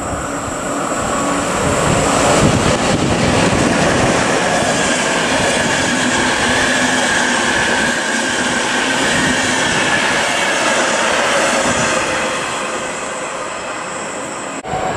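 PKP Intercity passenger train passing through the station at speed, its wheels rumbling on the rails. The noise swells a couple of seconds in, holds steady as the coaches go by, and eases a little near the end.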